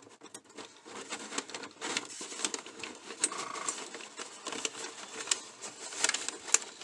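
Rapid, irregular clicking and rattling of small hard objects being handled, with a brief faint tone about halfway through.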